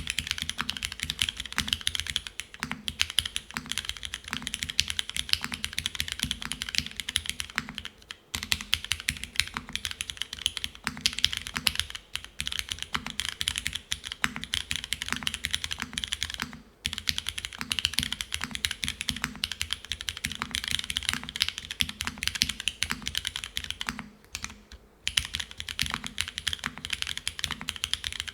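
Fast, continuous typing on a Geonworks F1-8X V2 mechanical keyboard: Cherry Hyperglide Black linear switches under GMK Classic Beige keycaps, on an aluminium plate with O-ring gasket mounting and no dampening foam. The run of keystrokes breaks off briefly three times, about 8, 17 and 24 seconds in.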